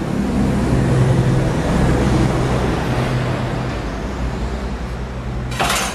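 A steady low mechanical rumble with a hum in it swells over the first couple of seconds and then eases off. A brief sharp noise comes just before the end.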